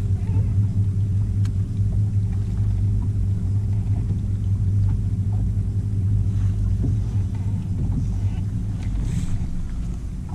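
Bow-mounted electric trolling motor on a bass boat running with a steady low hum.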